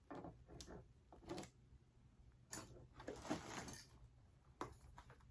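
Faint handling noises: a few light clicks and knocks, with a longer rustle about two and a half seconds in, as vacuum parts and packaging are handled.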